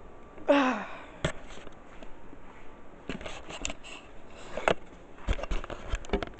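Handling noise from a phone being carried and swung about: scattered clicks, knocks and rubbing against the microphone. A brief falling vocal sound comes about half a second in.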